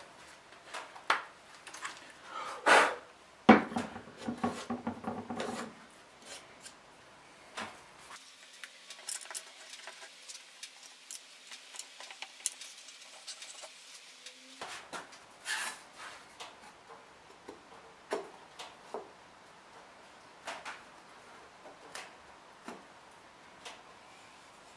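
Wooden box parts handled and set down on a wooden workbench: scattered knocks and clicks, with a louder clatter and rattle a few seconds in.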